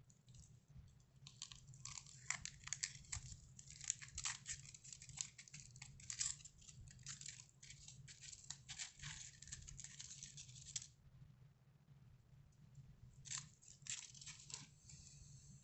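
Faint crinkling and crackling of a crumpled aluminium-foil armature as Play-Doh is pulled off it. The crackle stops about eleven seconds in and returns briefly near the end.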